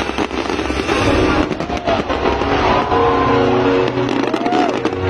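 Aerial fireworks display: a continuous low rumble of shell bursts with a run of sharp crackling about one and a half to two and a half seconds in, and shouts from the crowd. Background music comes in about three seconds in.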